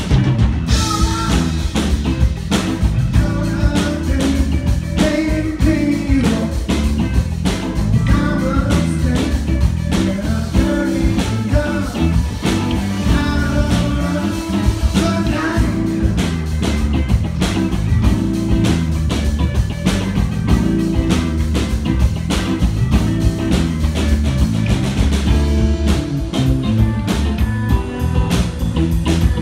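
Rock band playing live: electric guitars and a drum kit, loud and continuous.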